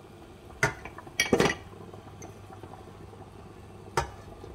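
Ceramic mugs clinking and knocking as they are set into a stainless steel saucepan: one knock a little over half a second in, two close together around a second and a half, and one more near the end.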